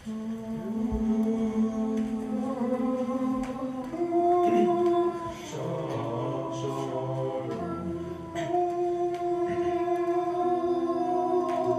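Boys' a cappella group singing sustained wordless chords in close harmony, moving to a new chord every couple of seconds.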